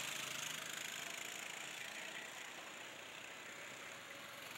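Go-kart engines running on the track, a steady drone that slowly fades.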